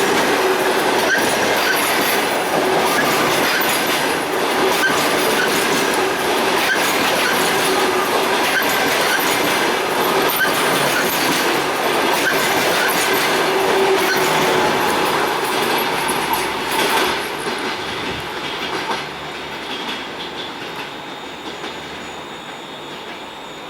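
A passenger train's coaches run past close by, their wheels clattering over rail joints with steady ringing tones over the noise. About 17 seconds in, the end of the train passes and the sound dies away.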